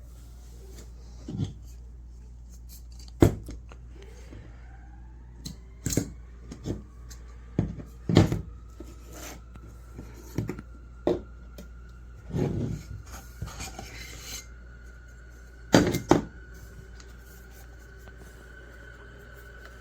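Small hard objects clicking and clinking as they are handled, a dozen or so separate knocks at irregular intervals, over a low steady hum. A faint tone rises in pitch about four seconds in and then holds steady.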